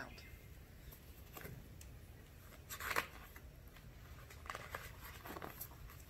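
Pages of a hardcover picture book rustling as it is opened and leafed through: a few soft paper rustles over a faint steady background hum, the loudest about three seconds in.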